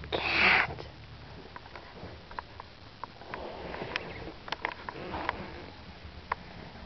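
A loud breathy rush about half a second in, then soft breathy sniffs and small scattered clicks close to the microphone.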